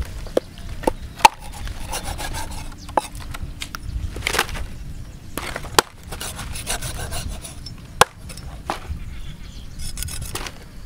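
Cleaver cutting through a stingray's fin on a wooden chopping block: the blade scrapes and slices through the flesh, with several sharp knocks of the blade on the wood at irregular intervals.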